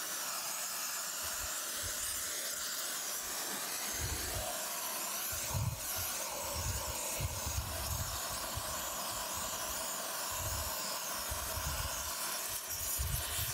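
Oxy-fuel rosebud heating torch burning with a steady hiss and an uneven low rumble, preheating a cast-iron steam chest casting before brazing.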